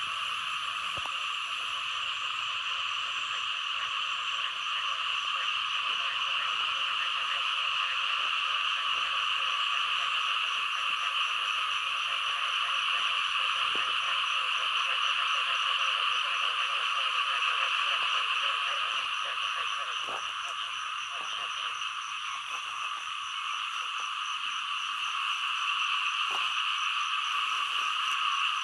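A chorus of many frogs calling at once, their calls overlapping into a steady, unbroken din.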